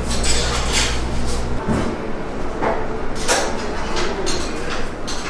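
Shop ambience: a steady low hum that cuts off abruptly about one and a half seconds in, with scattered sharp clicks and rustles of handling throughout.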